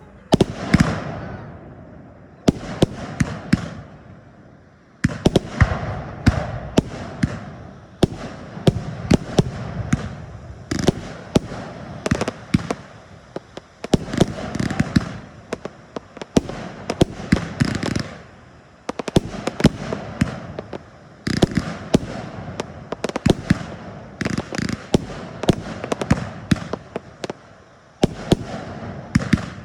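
Firework display: aerial fireworks bursting in quick succession, dozens of sharp bangs in clusters with a rumble between them and a few short lulls.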